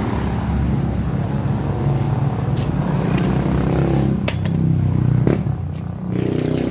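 A motor vehicle's engine running steadily close by, with two sharp knocks about four and five seconds in.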